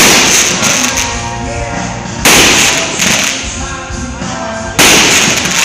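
Aerial fireworks shells bursting, three loud bangs about two and a half seconds apart, each trailing off over a second or two, with music playing underneath.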